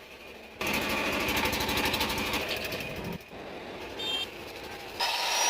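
Metalwork welding: a fast, even crackling buzz starting under a second in and lasting about two and a half seconds, then quieter workshop noise with a short high whine near the end.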